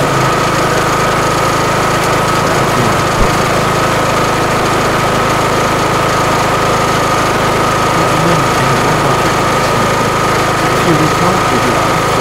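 Kohler Courage single-cylinder engine on a riding lawn mower running steadily just after starting, with a steady high whine over the engine note. Its valves have just been reset to clearance, and it runs smoothly with no odd valve noise.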